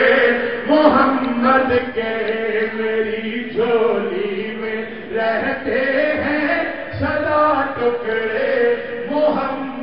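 A man's voice chanting a religious recitation into a microphone, in long, held, sing-song phrases.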